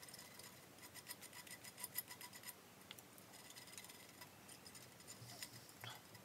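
Faint, quick ticking and scratching of a cotton swab worked into the choke-tool notches at the muzzle of Beretta 686 shotgun barrels, busiest about one to two seconds in.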